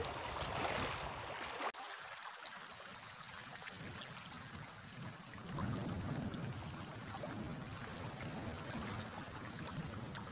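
Water lapping and splashing against a small boat on choppy sea, with gusts of wind rumbling on the microphone. The sound dips sharply for a few seconds about two seconds in, then rises again.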